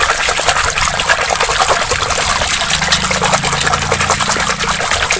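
Water sloshing and splashing without a break as a hand swishes a toy helicopter through a tub of foamy water.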